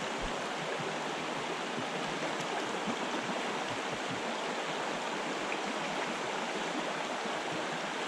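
Shallow, rocky trout stream running over riffles and stones: a steady, even rush of water.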